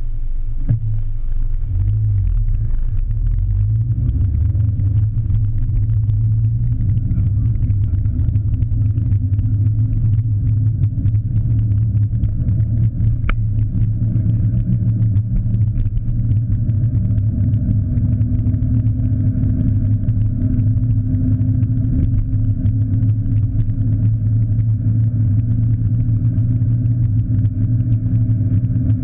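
Car driving, heard from inside the cabin as a steady low rumble of engine and road noise, muffled by the GoPro's sealed waterproof housing. Scattered faint ticks run through it, and there is one sharp click about thirteen seconds in.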